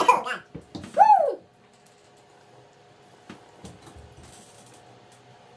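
A man coughing after a large dab hit: a harsh cough at the start, then a strained cough about a second in whose pitch rises and falls. It is quiet after that, with a few faint clicks as the electric dab rig is handled.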